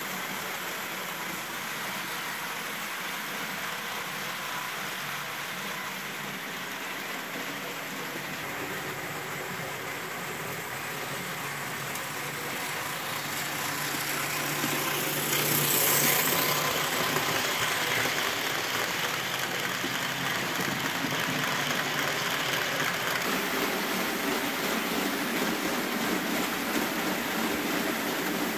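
Model trains running on metal track: a steady rolling clatter of wheels with electric motor hum, growing louder as a model steam locomotive passes close by about 15 to 16 seconds in.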